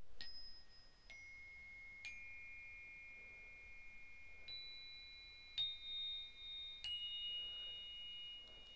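Chimes struck six times at different pitches, each high, clear tone ringing on and overlapping the next. The strike about halfway through is the loudest.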